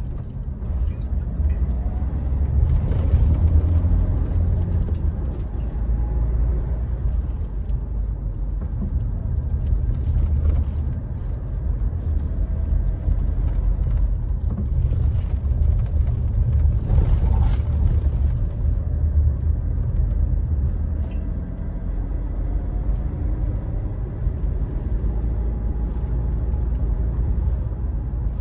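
Mitsubishi Montero Sport's diesel engine pulling uphill under load, heard from inside the cabin as a steady low rumble mixed with tyre and road noise; a faint engine note slowly rises and falls as the revs change.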